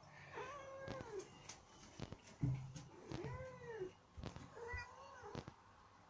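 Domestic cat meowing three times, each meow rising and then falling in pitch, with a few light clicks between the calls.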